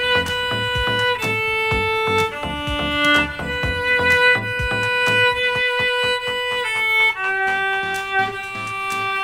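Viola played with a bow: a slow melody of long held single notes, changing pitch every second or so.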